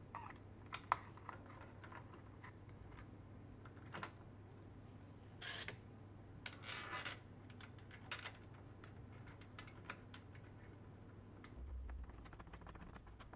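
Metal Euro lock cylinder being fitted into a door: scattered small clicks and taps, with two short scrapes about halfway through as it slides into place.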